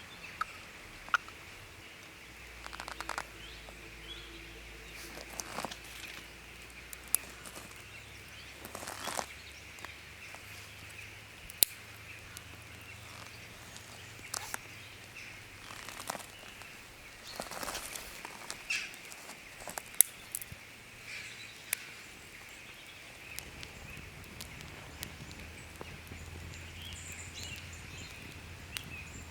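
Campfire burning, its wood crackling with irregular sharp pops, a few much louder than the rest, over a steady high hiss of forest ambience with occasional faint bird calls.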